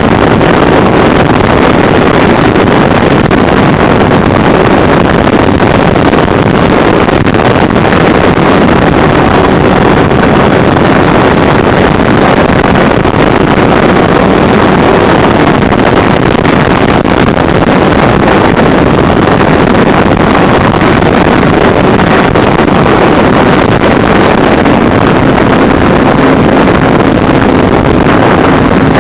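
FPV racing drone's electric motors and propellers running steadily at high power, a loud dense hum with faint whining tones under it, mixed with wind buffeting the microphone.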